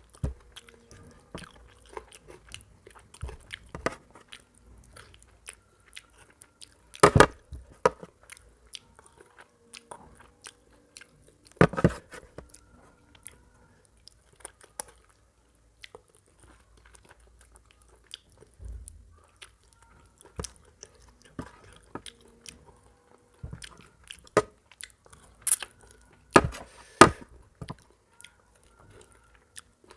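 Close-up chewing and lip-smacking of a man eating rice mixed with mutton curry by hand. Scattered short, wet mouth clicks, with a few louder wet smacks about 7 and 12 seconds in and again near the end.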